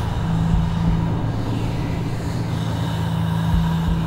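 Electroacoustic score: a steady low drone held on one pitch over a rough, rumbling noise bed, machine-like rather than melodic.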